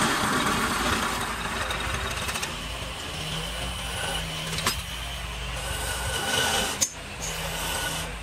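Homemade wood lathe running with a steady motor hum while a gouge cuts into a spinning log blank, giving a rough, continuous scraping hiss of wood being roughed down.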